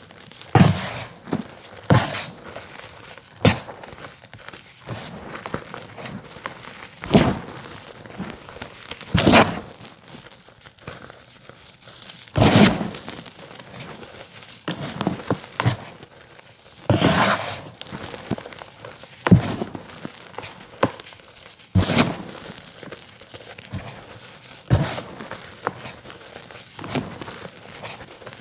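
Blocks of gym chalk crushed by hand into loose powder: soft, irregular crunches and thuds every second or two, with faint crumbling between.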